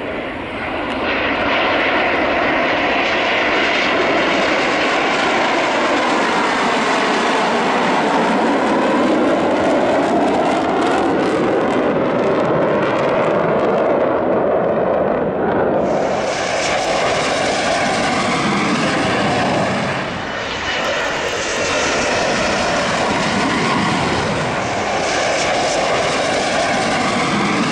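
Panavia Tornado jets flying past on approach with landing gear down: loud, steady jet engine noise from their twin turbofans. In the first half the tone sweeps slowly up and down, and about halfway through the sound changes abruptly.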